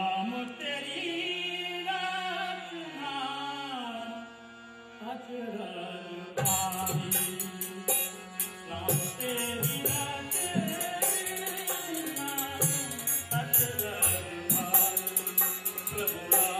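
Thumri sung by a male voice over a harmonium. About six seconds in, a dholak and the metal strikes of a dhantal join in a steady rhythm.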